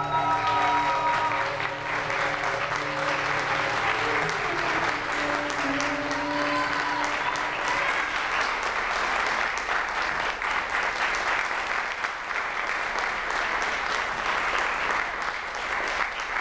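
Audience applauding, steady clapping throughout, while the last notes of the dance music fade out in the first few seconds.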